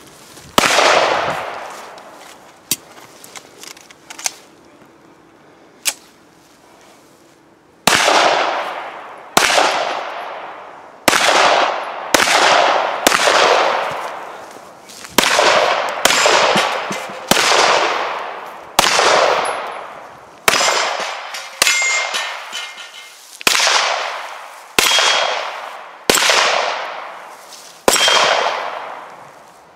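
Pistol shots with steel plate targets clanging, each shot trailing off in a long ring. One shot comes right at the start, then a pause with a few faint clicks, then about fifteen shots at a steady pace of roughly one every second to second and a half.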